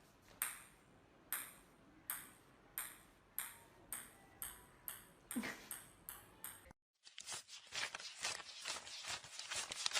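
A series of short, sharp ringing pings that come faster and faster, from about one every second to several a second. They break off suddenly about two-thirds of the way through, and a dense crackle of rapid clicks follows.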